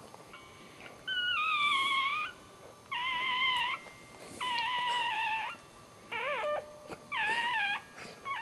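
Newborn dachshund puppy crying: five high-pitched, wavering cries of about a second each, one every second and a half or so, the fourth shorter and bending up and down in pitch.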